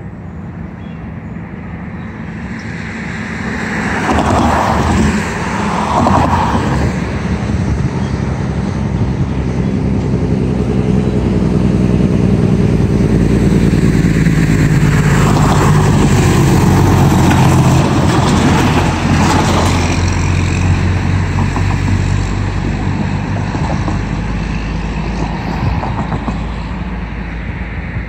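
Diesel locomotive engine droning as the train approaches, getting louder over the first few seconds, peaking around the middle and easing off a little near the end.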